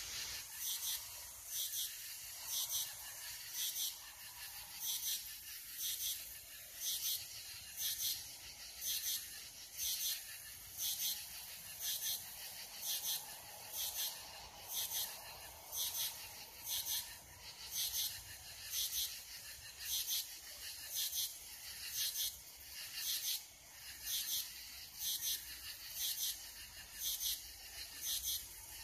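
Night insects calling in chorus: a raspy, rhythmic chirp pulsing about once a second.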